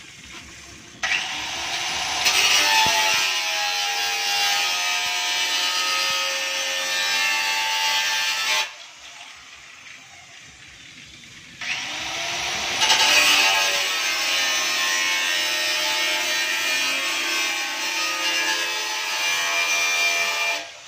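Handheld electric cutter of the angle-grinder type running and cutting, with a whine that wavers as the disc works. It goes in two runs: the first starts about a second in and lasts some seven seconds, and the second starts after a pause of about three seconds and runs almost nine seconds.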